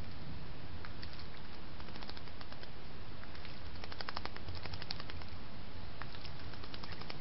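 Eurasian blackbird bathing in a shallow pond, splashing and flicking water in quick patters of small splashes that come in several flurries, over a steady hiss.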